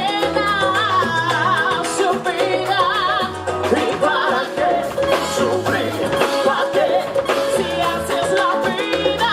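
A singer with a wavering vibrato over Latin-style backing music with a stepping bass line.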